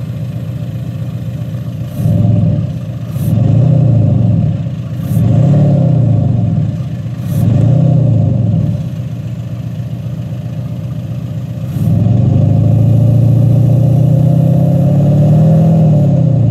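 VW Golf 7 GTD's 2.0 TDI diesel engine, heard with its factory sound actuator on the original VW setting. It idles and is revved in four short blips about every two seconds, then held up in one longer rev of about four seconds near the end.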